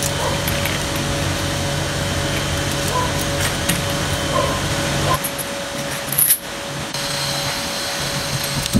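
A machine running with a steady hum; its deep part drops away suddenly about five seconds in, and a high steady tone comes in near the end.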